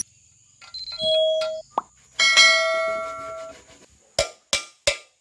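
Metal ringing like a bell: a short ring about a second in, then a louder strike whose ringing fades over about a second and a half. From about four seconds in there is a run of five sharp knocks, roughly two or three a second.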